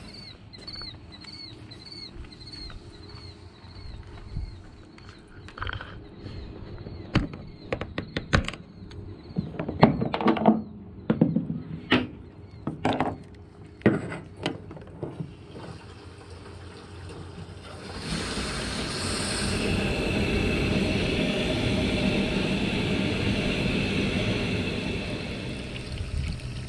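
Clicks and knocks of a fuel nozzle being handled in an aircraft wing-tank filler, over a faint high chirp repeating about twice a second. About two-thirds of the way in, 100LL avgas starts flowing from the nozzle into the Cirrus SR22's wing tank as a steady pour.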